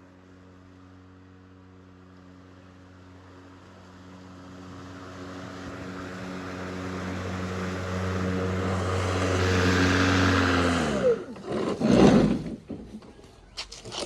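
Ryobi 40V brushless cordless lawn mower running with a steady hum and a rushing hiss from the blade, growing louder over several seconds. It is shut off about eleven seconds in, and its pitch falls as the motor and blade spin down. A low thump follows about a second later, then a few clicks near the end.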